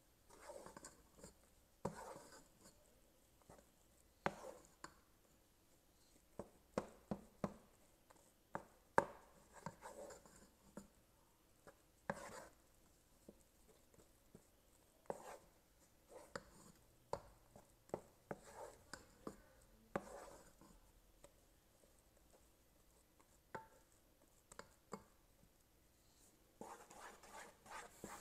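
Wooden spoon stirring melting marshmallows in a metal pot, heard as faint, irregular knocks and short scrapes of the spoon against the pot. A denser run of scraping comes near the end.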